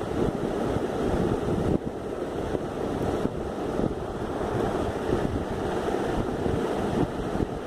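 Steady rushing, buffeting noise of moving air on the microphone.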